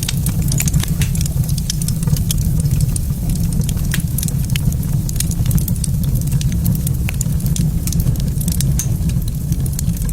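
Fireplace fire crackling, with frequent irregular sharp pops over a steady low rumble.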